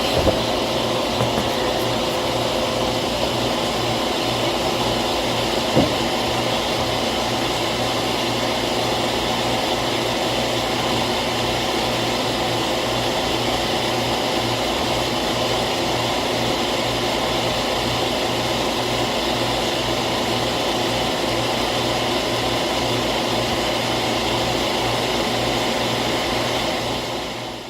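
Refrigerant recovery machine running steadily, its compressor and fan humming as it pulls the R-22 charge out of the system. A single knock comes about six seconds in, and the sound fades out near the end.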